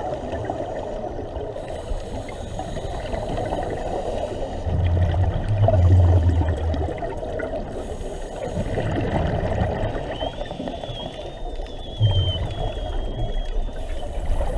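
Underwater sound of a scuba dive heard through a camera housing: a steady hiss of water with rumbling swells of regulator exhaust bubbles, the biggest about five to seven seconds in and another at about twelve seconds. A faint wavering whistle comes in over the last few seconds.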